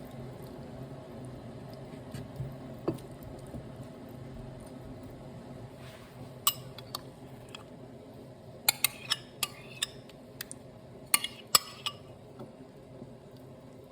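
Kitchen utensils clinking against a pan or dish: a run of sharp clinks in the second half, over a steady low hum.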